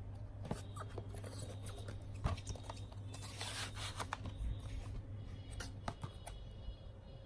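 Plastic DVD case and cardboard slipcase being handled: scattered clicks and taps, a sharper knock about two seconds in, and a brief scraping rustle around three and a half seconds in as the case slides out of the slipcase. A low steady hum runs underneath.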